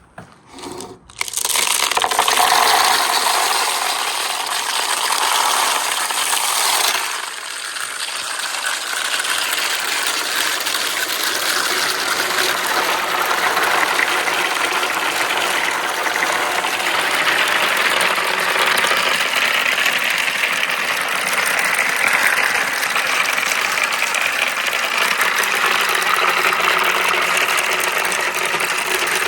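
Marbles rolling and clattering along a wooden marble run with right-angle turns: a few clicks, then about a second in a dense, continuous rattle that keeps up, dipping briefly around seven seconds.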